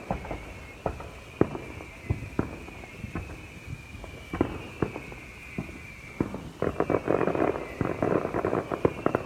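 Fireworks going off: scattered sharp bangs and pops, with a dense run of crackling in the second half. A steady high-pitched hum sits underneath.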